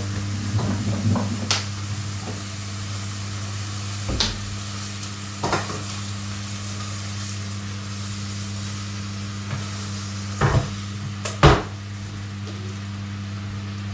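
Food sizzling in a pan over a steady low hum, with a few short knocks of a cooking utensil against the pot; the loudest knock comes near the end.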